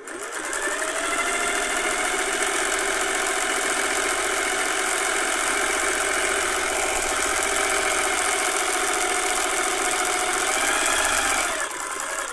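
Singer 401A sewing machine running under its electric motor, stitching a decorative pattern stitch. It picks up speed over the first second, runs steadily, and stops shortly before the end. The machine has just been cleaned, oiled and greased.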